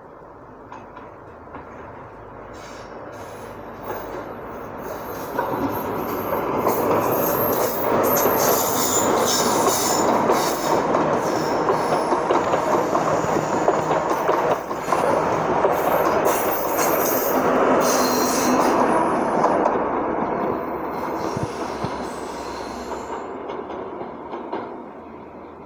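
A Great Western Railway diesel passenger train, an HST-type set with power cars and green coaches, passes close by on curved track. It builds up as it approaches, is loudest for about ten seconds as the coaches go past with wheel squeal and rail noise, then fades as it draws away.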